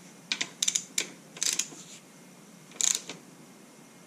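Ratcheting torque wrench with a 12 mm socket clicking in several short bursts over the first three seconds while tightening a front brake caliper bolt to its 15 foot-pound spec.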